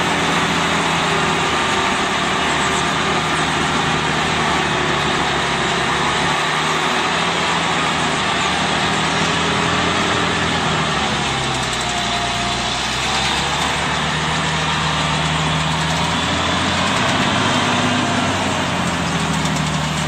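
Heavy machine's engine running steadily, its speed dipping and rising a couple of times.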